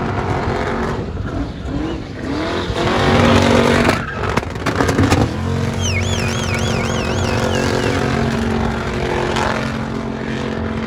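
A car's engine revs up, then holds at steady high revs while its tires spin against the track, covered by a dense noise of tire scrub. About six seconds in, a high warbling squeal sounds for a couple of seconds.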